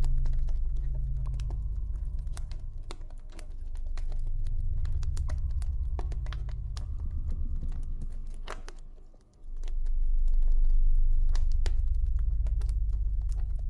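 Campfire crackling with many irregular sharp snaps and pops, over a deep low drone that swells and fades in long slow waves and dips out briefly about nine seconds in. The drone is the loudest part.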